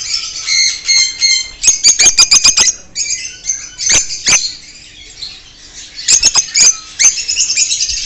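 A flock of lovebirds chattering with sharp, high chirps and squawks in quick clusters, with a quieter spell about five seconds in.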